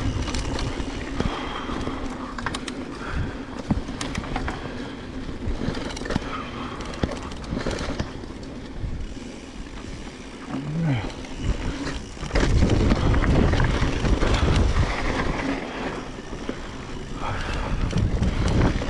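Mountain bike riding down a rough trail: tyres on dirt, the bike clattering with many sharp knocks over bumps, and a heavy rumble of wind on the microphone that grows louder from about the middle. A brief voice sound is heard around the middle.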